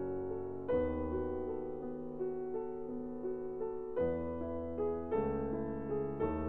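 Background piano music: slow, sustained chords, a new one struck every one to three seconds.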